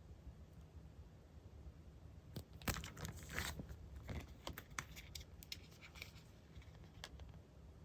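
Paper goods being handled by hand: a short rustle about three seconds in, then scattered light taps and clicks.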